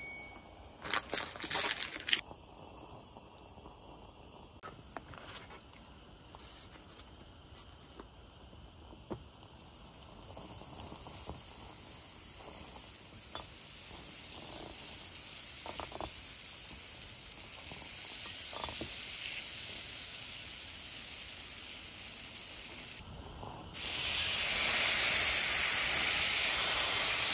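Beef sizzling on a small grill over a solid-fuel mini brazier. The sizzle builds gradually, then turns much louder near the end. A few clinks come near the start.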